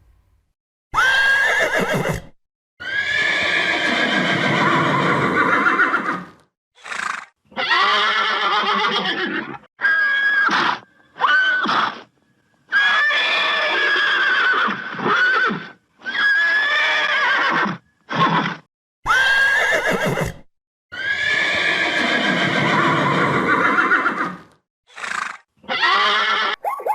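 Horse whinnying: a series of loud neighs with wavering, falling pitch, separated by abrupt cuts, with the same sequence of calls repeating about halfway through.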